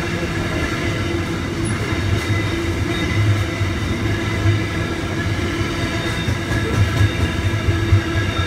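Container freight train's wagons rolling past on the rails: a steady rumble and wheel clatter, with a high steady ringing over it.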